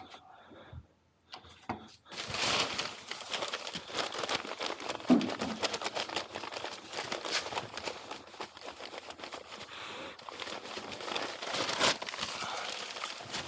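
A sack of building product rustling and crinkling as it is handled, a steady crackly stream of small crackles that starts about two seconds in.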